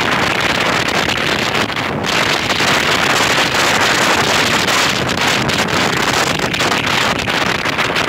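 Steady wind buffeting on the microphone of a moving vehicle, with the vehicle's running noise beneath it.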